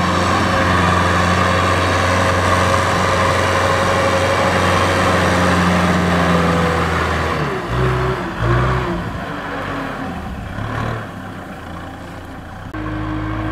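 Kubota M6040 tractor's diesel engine running under load as it hauls a trailer of rice sacks through a muddy field. The note holds steady for about seven seconds, then dips and wavers. Near the end a different steady engine tone comes in.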